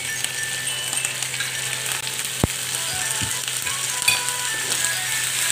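Chicken pieces just added to hot oil, sizzling in a frying pan with many small pops. One sharp knock comes about two and a half seconds in.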